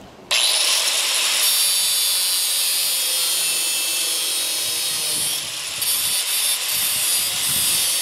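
Electric angle grinder switched on and its cut-off wheel biting into the metal of a trailer ball coupler, a loud, high-pitched grinding screech. It starts abruptly a moment in and dips briefly a little past halfway.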